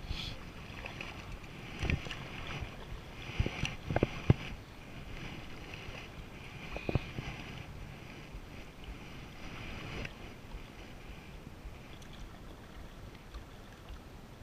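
Water splashing and dripping off a double-bladed kayak paddle with each stroke. A few sharp knocks come between about two and seven seconds in.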